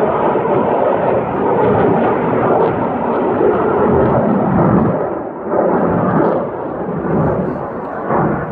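Jet aircraft roaring overhead: a loud, steady rushing rumble that dips briefly about five seconds in and again near the end.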